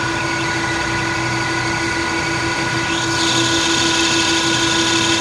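Metal lathe running with a steady whine while an indexable carbide insert turns a metal part; about three seconds in, a louder high cutting hiss joins as the chip comes off.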